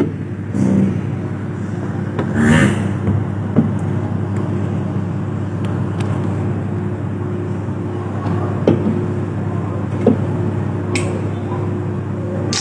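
A steady low mechanical hum, with a few light knocks and rustles scattered through it.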